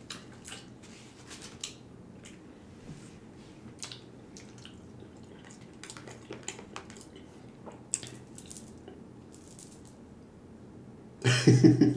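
Close-miked eating: wet chewing and mouth sounds with scattered small clicks of a utensil on a plate. A much louder burst of sound comes near the end.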